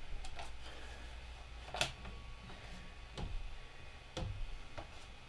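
A handful of short clicks and crackles, the clearest a little under two seconds in, from backing paper being peeled off a 3D printer bed's adhesive build sheet while the sheet is rubbed down with a cloth. A faint low hum runs underneath.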